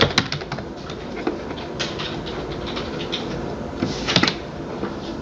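Scattered clicks and taps from a computer keyboard and mouse, in small clusters at the start and about four seconds in, over a steady background hiss.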